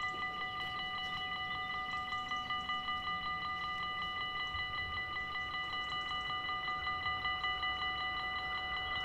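Dutch level-crossing warning bells ringing continuously in fast, even strokes, several a second, sounding while the barriers are down to warn that a train is coming.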